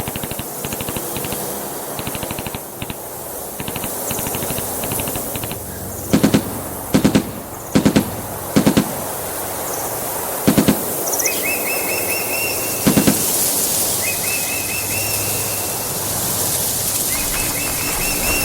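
Sound effects of gunfire: rapid machine-gun bursts, then several loud single and paired shots. From about the middle on, bird chirps repeat as short trills over a steady background hiss.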